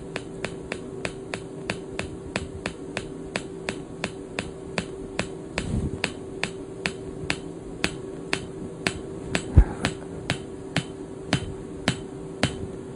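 Delta Pulse PEMF-100 pulsed electromagnetic coil clicking with each magnetic discharge: a sharp, regular tick that slows from about five a second to about two and a half a second as the intensity dial is turned up, since the discharge rate falls as the field strength rises. A steady hum from the unit runs underneath, and a single dull thump sounds about ten seconds in.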